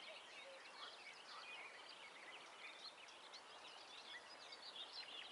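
Faint dawn chorus of many songbirds: a dense, overlapping stream of quick chirps and whistles, without a break.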